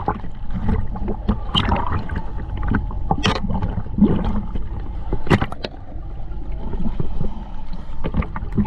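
Water sloshing and gurgling around the dive camera, with a low rumble and scattered sharp knocks and clicks.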